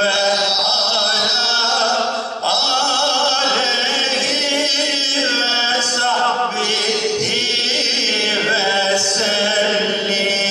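A man's voice chanting an Islamic religious recitation in a winding, ornamented melody through a microphone, sustained with only a brief breath-like dip.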